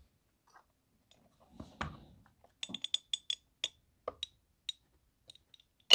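SDS Imports Radikal NK-1 bullpup shotgun's trigger being drawn slowly back by a trigger pull gauge: a run of small light clicks as the notchy trigger's springs move. Right at the end there is one sharp, much louder snap as the trigger breaks and the hammer falls on the empty gun.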